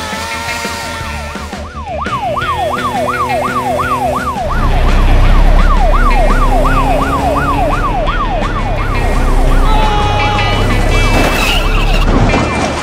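Police siren in a fast yelp, its pitch sweeping up and down about three times a second. From about four seconds in, a heavy low rumble runs beneath it, and a burst of noise comes near the end.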